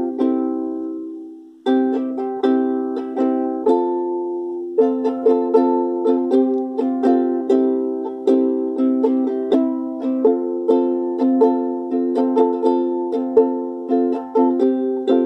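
Ukulele strummed in chords. About a second in, one chord is left ringing and dies away before the strumming starts again; from about five seconds in it settles into a steady strumming rhythm.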